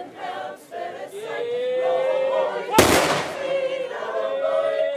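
Men's voices calling out, one call drawn out, then about three seconds in a line of riflemen fires a single salute volley into the air: one sharp, loud crack with a short ringing tail. Voices call out again afterwards.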